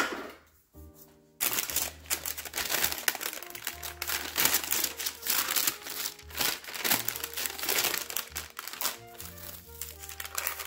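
Plastic cling wrap and parchment paper crinkling as they are peeled back off a slab of fudge. The crinkling starts about a second and a half in and runs on busily over background music with a steady bass line.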